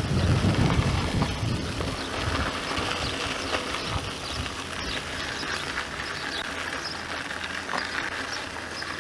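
Mountain bike rolling along a sandy, gritty dirt track: tyres crunching and ticking over grit, with wind buffeting the microphone, strongest in the first second or so.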